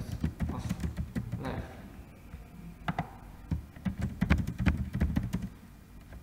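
Computer keyboard typing: irregular runs of key clicks, pausing in the middle and thinning out near the end.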